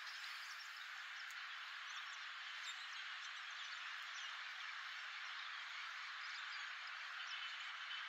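Steady hiss of road traffic, with faint, short bird chirps scattered throughout.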